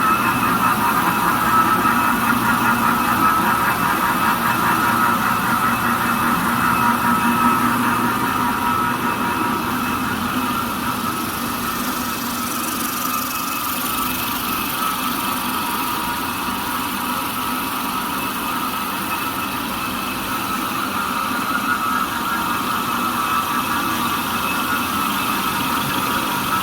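Jumbo roll toilet paper slitting machine running, a steady mechanical drone with several held tones, unchanging throughout.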